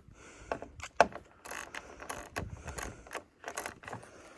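Ratchet wrench clicking in short, irregular runs as the bolts on the roof's mounting clamps are tightened, with a sharper knock about a second in.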